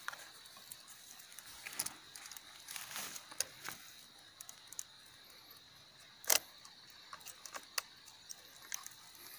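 Irregular clicks, crackles and scrapes of roots being broken and dug out of stony soil by hand and with pruning shears, with one louder sharp snap about six seconds in.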